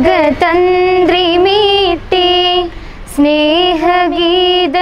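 Young girls singing a Malayalam prayer song together on one melody line, with flowing, ornamented phrases and a short breath break a little past halfway.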